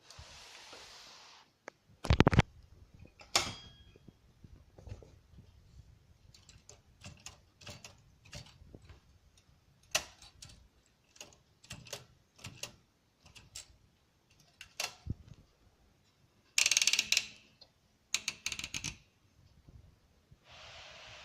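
Olympia SM4 manual typewriter in use: a heavy thump, then irregular keystrokes clacking for a dozen seconds, then two longer rasping mechanical strokes.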